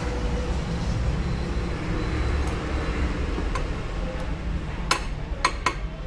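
Steady low background rumble, with a few sharp metal clinks near the end as a steel punch is set against the end of a scooter's bent crankshaft, ready for light hammer taps to straighten it.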